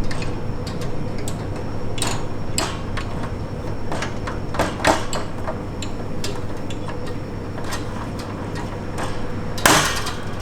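Wire panels and plastic parts of a Hagen Vision bird cage being handled and fitted into the base: scattered clicks and knocks, with a louder clatter near the end, over a steady hum.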